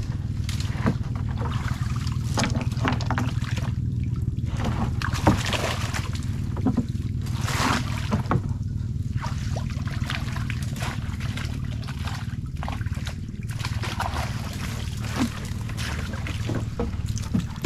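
Water splashing and trickling off a wire-mesh fish trap as it is hauled up out of floodwater beside a wooden canoe, with frequent short knocks and rattles. A steady low hum runs underneath.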